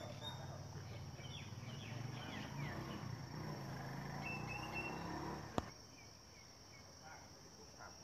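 Outdoor ambience: a steady high insect drone with faint scattered chirps over a low rumble. About two-thirds of the way through there is a sharp click, and after it the rumble drops away, leaving the quieter insect drone.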